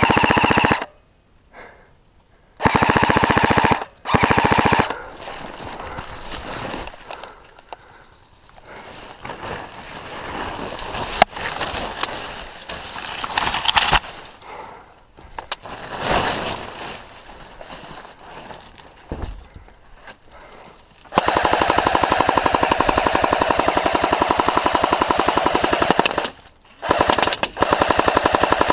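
Airsoft gun firing on full auto at close range: several short bursts of rapid clicks, then one long burst of about five seconds near the end and another short one.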